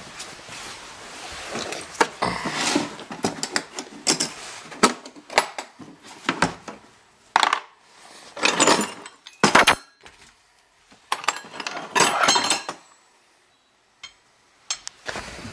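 Hard plastic Milwaukee drill case being opened and rummaged through: the case and lid clicking and knocking, the corded drill lifted out, and loose metal drill bits clinking. This comes as a series of short clatters with pauses, and there is a quiet gap near the end.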